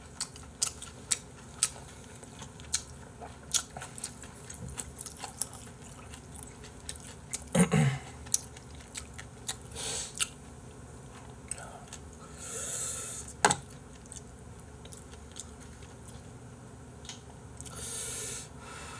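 Close-up mouth sounds of eating: chewing with many sharp wet clicks and crunches, a brief low hum about eight seconds in, then two hissing slurps of ramen noodles and broth, about twelve and eighteen seconds in.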